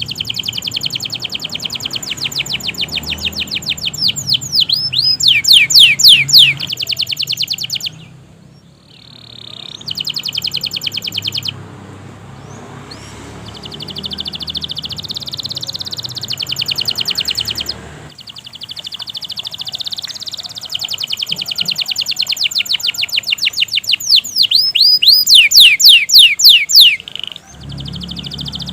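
Domestic canary singing a long song of rapid trills, each phrase a fast run of one repeated note before it switches to another. Twice a loud run of quick falling sweeps stands out, and the song breaks off briefly between phrases.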